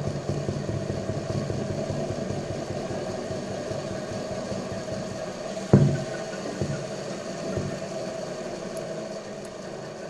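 Washing-machine universal motor running on a DC supply, a steady mechanical hum. A little under six seconds in there is a sharp click as a lead is connected, and the running sound then gradually gets quieter.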